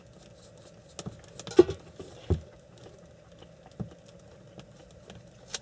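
Scattered light clicks and knocks of food, wrappers and tableware being handled on a table, with a dull thump a little over two seconds in, over a faint steady hum.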